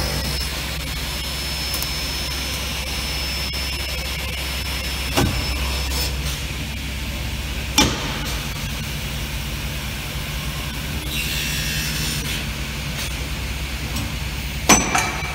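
Multi-spindle aluminium drilling and tapping machine running, with a steady low hum and a thin high whine that stops about six seconds in. A few sharp knocks come through it, one about five seconds in, one near eight seconds, and two close together near the end.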